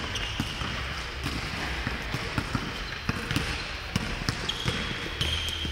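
Basketball on a hardwood court: the ball bouncing and players' footsteps thudding at an irregular pace, with a few short sneaker squeaks near the end.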